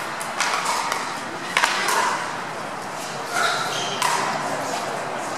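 Pickleball paddles striking the hard plastic ball, two sharp hits about a second apart and a weaker one later, in a large echoing hall, with voices around.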